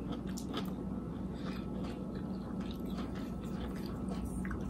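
Close-up chewing and biting as someone eats, with small wet clicks and crunches scattered irregularly over a steady low hum.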